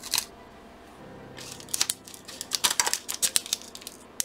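Small screws and nuts for a model kit being handled: a plastic parts bag crinkling and small parts clicking. A couple of sharp clicks at the start, a lull, then a busy run of clicks and rustles from about a second and a half in.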